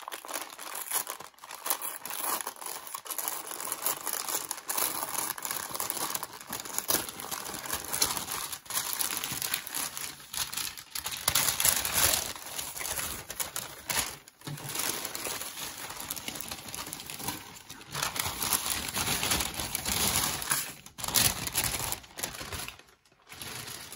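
Parcel packaging crinkling and rustling as it is handled and unwrapped, in irregular bursts with short pauses.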